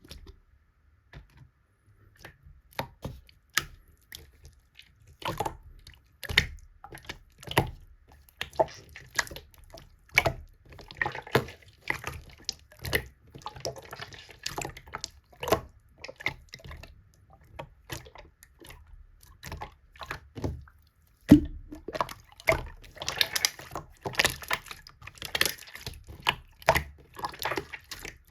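Slime being squished, poked and stretched by hand, making irregular wet, sticky clicks and pops, roughly one or two a second. They come thicker and faster in the last third, after a short pause and a loud pop.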